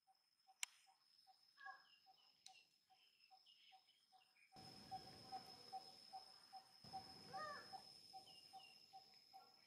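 Faint outdoor ambience: insects keep up a steady high buzz and an even pulsing note about three times a second, with scattered short chirps and calls. About halfway through, a soft low rushing noise comes in and stays.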